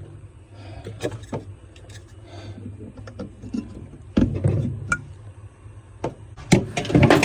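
Hand work on a refrigerator's evaporator fan motor and its plastic parts: scattered clicks and knocks, with a louder knock about four seconds in, over a low steady hum.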